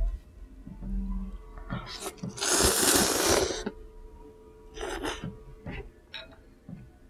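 A person slurping ramen noodles: one long, loud slurp starting about two and a half seconds in and lasting over a second, then a shorter slurp about five seconds in, with smaller sucking noises around them.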